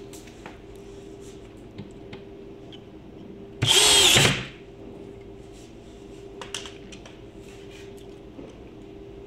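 Power drill driving a screw in one short burst of under a second, about three and a half seconds in; its pitch dips as it starts. Otherwise a faint steady hum and a few light clicks.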